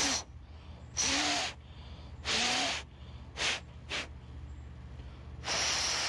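Mouth blowing hard through a small plastic mower fuel pump to clear a plugged passage: six hissing puffs of breath, four of about half a second and two short ones in the middle.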